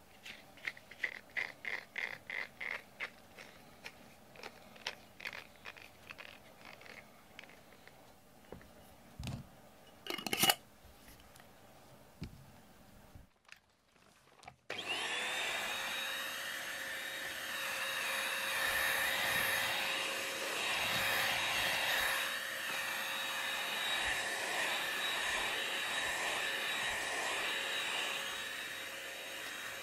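A run of light ticks with one sharp knock, then about halfway in a vacuum cleaner switches on, its motor whining up, and runs steadily as its head is pushed over a shaggy rug.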